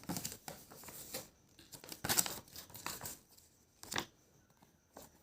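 Packaging being handled: irregular rustling of wrapping in two stretches, with a sharp click about four seconds in.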